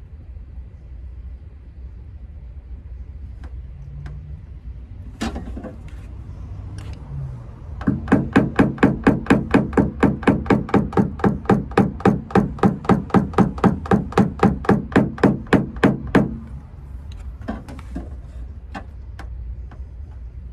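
Small PDR hammer rapidly tapping a tap-down punch against the quarter panel of a 2021 Dodge Challenger, knocking down high spots around the dent. It is a fast, even run of sharp taps, about five a second, lasting some eight seconds, with a few single clicks before and after.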